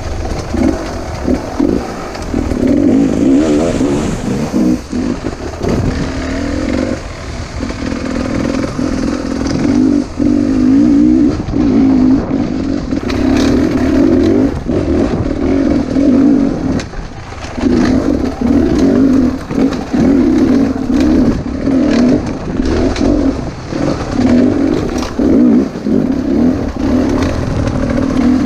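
A 300cc two-stroke enduro motorcycle ridden at low speed over a rocky trail, its engine revving up and dropping back over and over as the throttle is worked. Short knocks and rattles from the bike over the stones.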